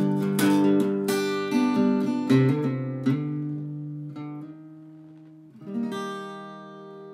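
Acoustic guitar playing the song's closing chords: strummed chords that thin out and slow, then one last strum about six seconds in, left to ring and fade.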